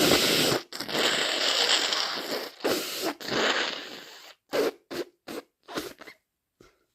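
A nose being blown hard in a few long, loud, noisy blows over about four seconds, followed by several short quick noises.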